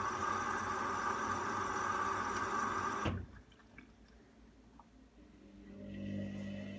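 Hoover front-loading washing machine on its spin cycle, the drum spinning with a steady whirring whine. The noise cuts off suddenly about three seconds in, leaving a faint low hum that grows toward the end.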